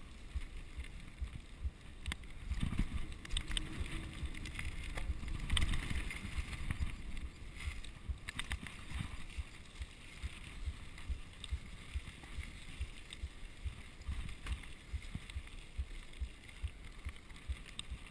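Mountain bike rolling along a dirt trail: tyres crunching over the dirt, the bike rattling and clicking over bumps, and wind buffeting the microphone as a steady rumble with irregular thumps.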